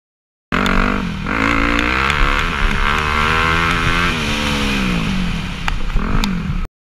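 Dirt bike engine revving up and down repeatedly as it rides. The sound starts abruptly about half a second in and cuts off abruptly near the end, with a couple of sharp ticks shortly before the cut.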